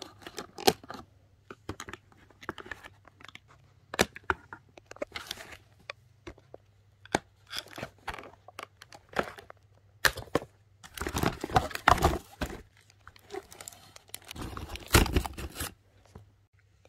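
Doll packaging being opened by hand: many short sharp clicks and snips as the ties holding the doll in its box are cut, and packaging tearing and crinkling. The tearing is loudest in two longer stretches, about eleven and fifteen seconds in.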